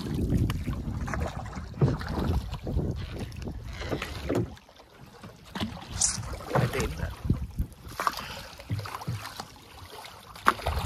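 Wind buffeting the microphone over water splashing against a small paddled canoe, with scattered short splashes from paddle strokes. The sound drops briefly about four and a half seconds in.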